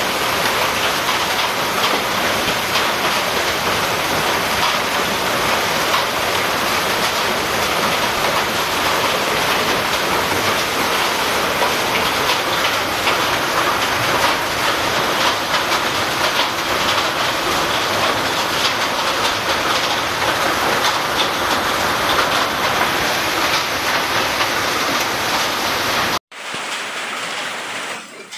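Hail and heavy rain pelting pavement: a loud, dense, unbroken clatter of hailstones and raindrops hitting the ground. About 26 seconds in it cuts off sharply, and quieter rain follows.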